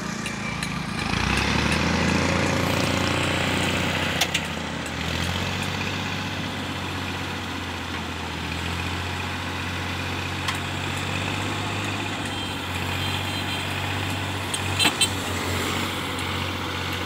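Massey Ferguson 240 tractor's three-cylinder diesel engine revving up about a second in and holding steady while it drives the hydraulics that tip a soil-laden trailer. A few light clicks show up along the way.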